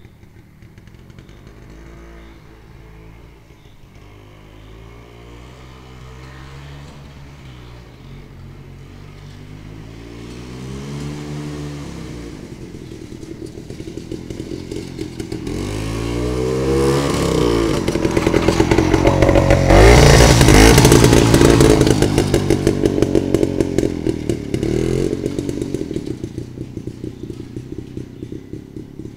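Jawa 250/353 motorcycle's single-cylinder two-stroke engine revving, its pitch climbing and dropping several times as it approaches, passes loudest about two-thirds of the way in, then fades away.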